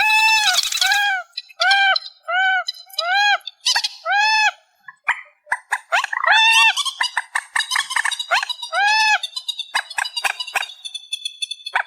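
Amplified recording of trích ré bird calls. A run of short calls, each rising then falling in pitch, comes about every half to one second, then rapid ticking calls and a thin high trill near the end.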